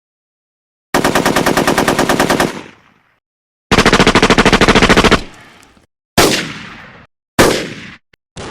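Cartoon sound effect of automatic gunfire: two rapid bursts of about a second and a half each, followed by two single shots that ring out and fade.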